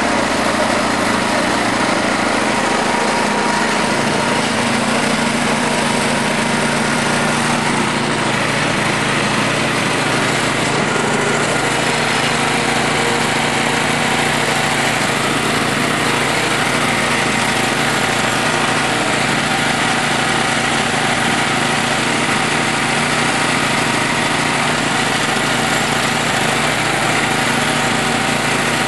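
Timber King 1200 portable band sawmill running steadily under load, its engine driving the band blade through a log in one continuous cut.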